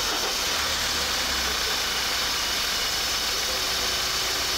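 Engine-oil flushing machine running steadily, a continuous mechanical hum with a strong hiss, while it cleans residue out of the engine.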